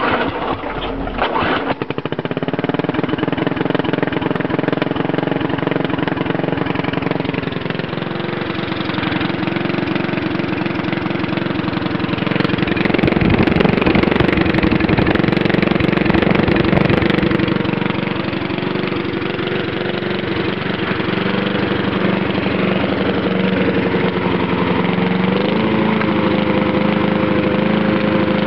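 Small lawnmower engine, exhausting through a straight paintball gun barrel, catching within the first couple of seconds and then running loud and steady. It grows louder and rougher for several seconds around the middle and picks up slightly in speed near the end.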